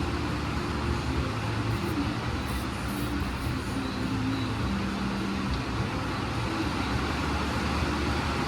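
Heavy rain falling hard and steadily, a constant hiss with a low rumble underneath.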